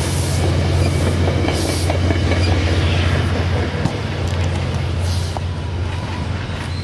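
Metrolink commuter train rolling past as it departs, its trailing cab car going by with a steady low rumble and the noise of wheels on the rails.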